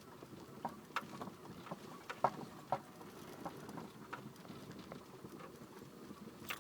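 LADA Kalina steering rack knocking in light, irregular taps as the car rolls over small bumps, over low road noise. This small rapid knocking on bumps is a steering-rack knock, the fault the owner sets out to fix.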